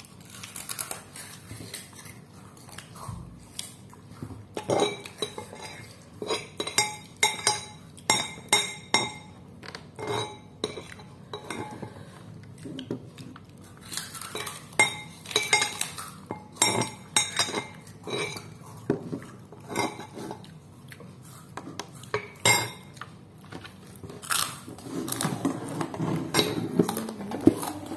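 Metal spoon clinking and scraping against a ceramic plate while eating, a long series of sharp clinks that come in quick runs.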